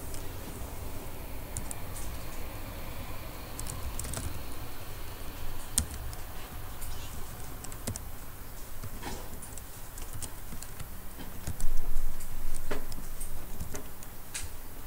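Typing on a computer keyboard: irregular, scattered keystrokes while code is entered. About twelve seconds in there is a louder bump with a few heavier clicks.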